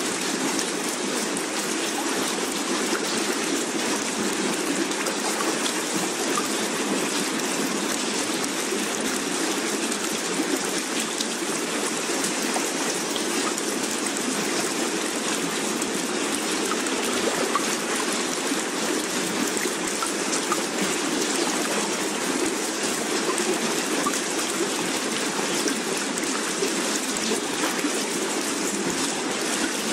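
Steady rushing water noise, even and unbroken, like rain or a flowing stream, with no separate splashes or wave surges.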